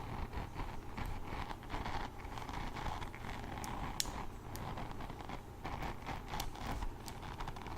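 Hairbrush bristles being scratched and brushed: a continuous scratchy rustle with scattered sharp ticks, one louder tick about four seconds in.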